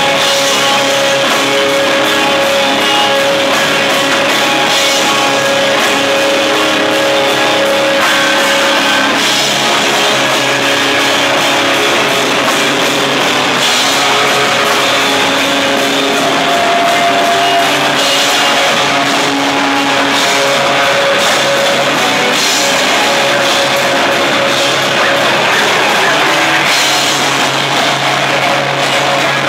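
Live rock band playing loud and dense: electric guitars through amplifier stacks over a drum kit with cymbals.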